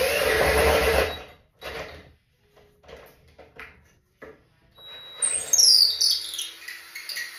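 Cordless drill driving a screw into a pine board: the motor runs for about the first second, a few short knocks follow, and the drill runs again from about five seconds in with a high squeal that falls in pitch.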